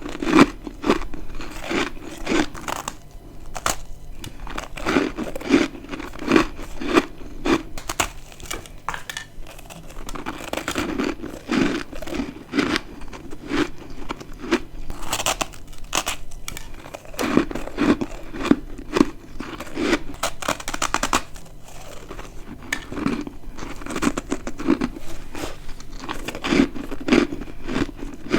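Close-miked biting and chewing of dry, crispy freezer frost chunks: a steady run of crunches in quick rhythmic groups, each chew a short crackling crunch.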